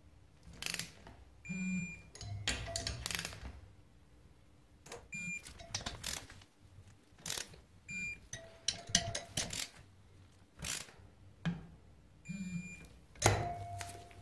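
Scattered short clicks and clinks of metal hand tools and engine parts being handled on a workbench, a few of them with a brief ringing tone.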